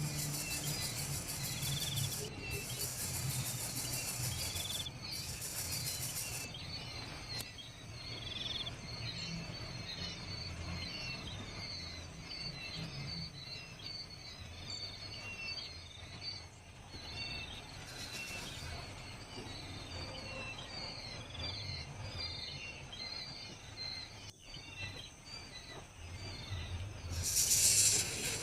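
Outdoor nature ambience: birds giving rapid, repeated high chirps, several a second. A high insect buzz runs through the first six seconds, under a low rumble. A brief burst of hiss comes near the end.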